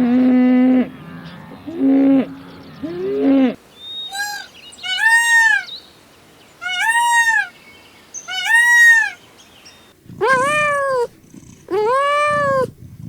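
Chickens clucking for the first few seconds. Then a series of goat bleats, each rising and falling in pitch: four higher calls, then three louder, lower ones near the end.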